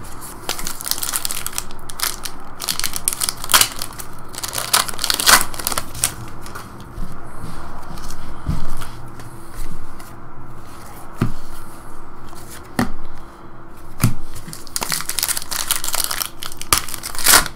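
Trading-card pack wrappers crinkling and tearing open, with cards sliding and flicking against each other, in a run of irregular crackles.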